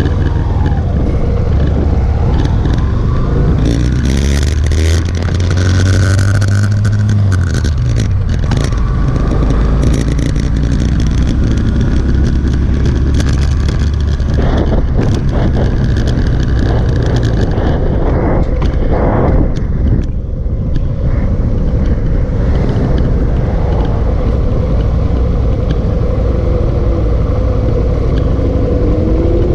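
Motorcycle engine pulling away and rising in pitch as it accelerates through the gears, then running at a steady cruise, with wind rushing over the microphone.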